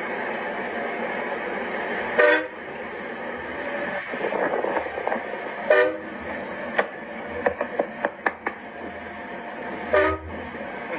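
Vehicle horn honked in three short blasts about three to four seconds apart, an impatient honking at people working in the road ahead, over a steady background noise. A few sharp clicks come between the second and third blasts.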